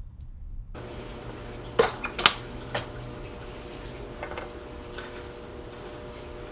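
A few sharp clicks and knocks of bike parts and tools being handled on a mountain bike in a repair stand, loudest in a cluster about two seconds in, over a faint steady hum.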